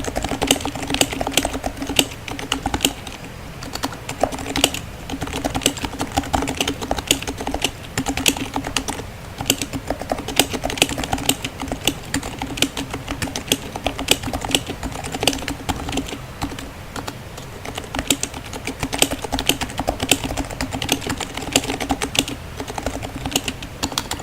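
Continuous typing on an HHKB Type S keyboard with lightly lubed, silenced Topre switches: a steady, dense stream of soft keystrokes.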